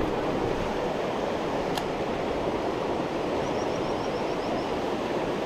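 Steady rush of river rapids running over rocks. A single sharp click about two seconds in, and a quick run of faint high ticks a little past the middle.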